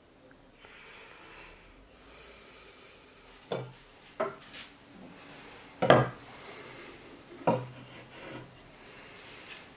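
A carved wooden hatchet handle and steel hatchet head handled on a wooden workbench: faint rubbing, then four sharp knocks spread over a few seconds, the loudest about six seconds in.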